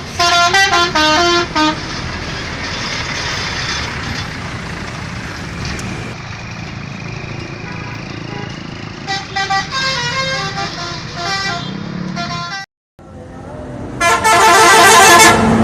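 Bus telolet horn playing quick tunes of short stepped notes, with road and engine noise between the tunes. The sound breaks off briefly about thirteen seconds in, and the loudest horn tune comes near the end.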